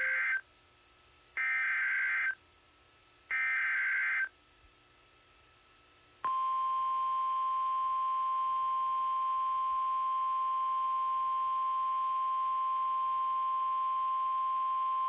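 Emergency Alert System SAME header: the tail of one short burst of screechy digital data and then two more, each about a second long with a gap between them. After a pause comes the steady single-pitched 1050 Hz NOAA Weather Radio warning alert tone, held for about nine seconds. The sequence marks the start of a new weather warning broadcast.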